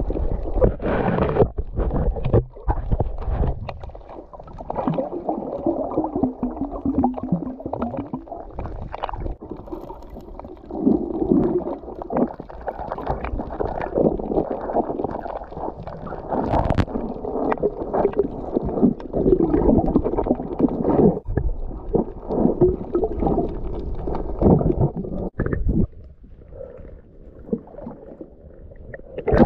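Muffled underwater sloshing and gurgling of seawater, heard through a submerged camera's waterproof housing, with frequent irregular knocks and bumps.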